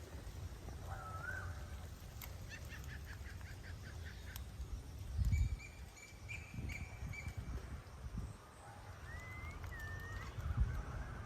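Birds calling outdoors: short whistled notes, a quick trill of rapid chirps and rising and falling glides, over a low rumble with a couple of dull thuds.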